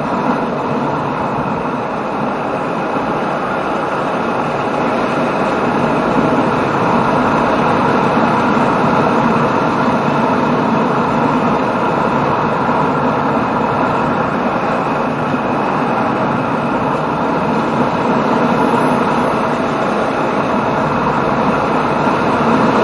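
Yamaha Jupiter MX 135 motorcycle riding along at a steady speed: its engine running under a dense rush of wind and road noise, a little louder after the first few seconds.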